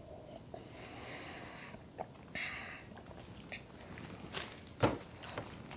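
Leftover cereal milk being drunk from a glass bowl, with soft breaths in the first half. Then a few knocks on a wooden table as things are set down, the last one, near the end, the loudest.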